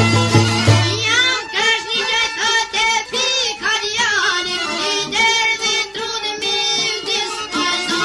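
Albanian folk song recording: a high, ornamented melody with bending notes over the accompaniment. The low, steady beat drops out about a second in.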